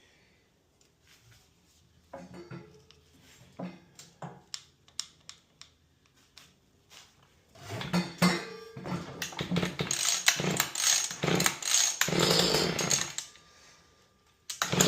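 Small two-stroke string trimmer engine being pull-started on choke. After a few short starter pulls it fires and runs rough and uneven for several seconds, stops, and catches again near the end.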